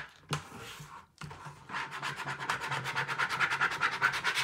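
Plastic squeegee scraping fast back and forth over transfer tape on a vinyl decal stuck to a plastic bucket, burnishing the vinyl down so it sticks. The strokes are faint at first and become a quick, steady scratching after about a second and a half.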